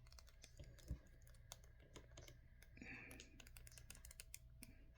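Faint, scattered small clicks and taps of plastic action-figure parts being handled and fitted together.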